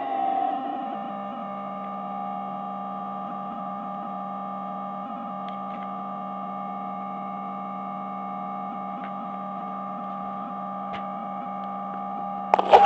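Electronic noise machine holding a steady drone of several stacked tones, feedback-like, with a few faint ticks; a sudden loud burst of noise breaks in near the end.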